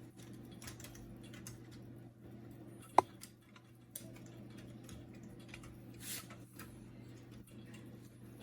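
Scattered light clicks and ticks of small printer parts being handled, with one sharp click about three seconds in, over a steady low hum.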